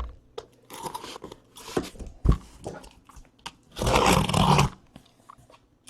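Card boxes being handled on a table: scattered knocks and clicks, with one loud, rough burst of noise lasting about a second near the four-second mark.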